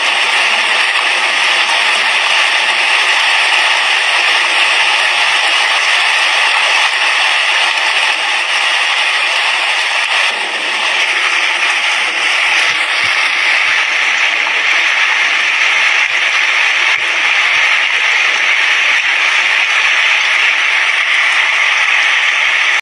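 Heavy rain falling on an asbestos-cement roof: a steady, dense hiss of drops, with a few faint low knocks in the second half.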